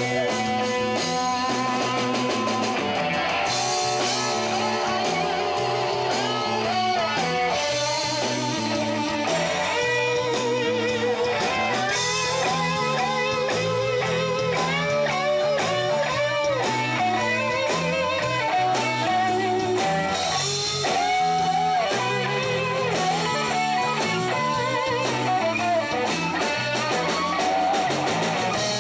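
Live blues band playing an instrumental break: a Les Paul-style electric guitar takes a solo of bent, wavering notes over bass guitar and drums.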